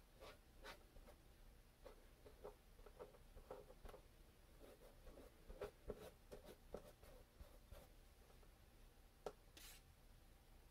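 Faint, irregular scratching and tapping of a paintbrush spreading matte Mod Podge over cardboard, with a brief soft hiss about nine seconds in.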